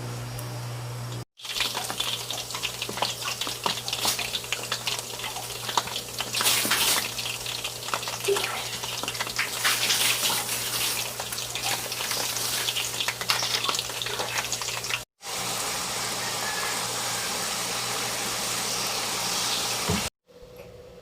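Street food deep-frying in hot oil, a dense crackling sizzle full of small pops, broken by two abrupt cuts.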